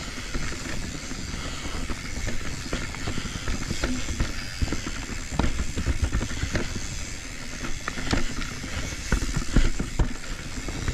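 Commencal full-suspension mountain bike riding a rooty dirt trail: a steady hiss of tyre and wind noise with frequent sharp knocks and rattles as the bike goes over roots.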